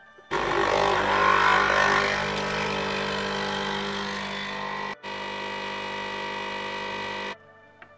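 Krups Nespresso capsule machine's vibration pump buzzing as it brews coffee into a cup. It starts suddenly just after the start, is loudest for the first couple of seconds, then runs steadily with a brief break near five seconds and cuts off about seven seconds in.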